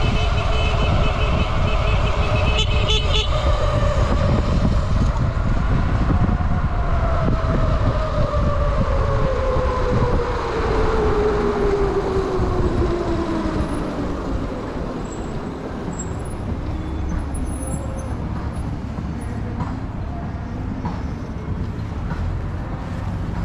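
Wind and road rumble from riding an electric vehicle, with a high steady tone in the first few seconds. A motor whine then falls steadily in pitch over several seconds as the ride slows, and the rumble eases a little after it.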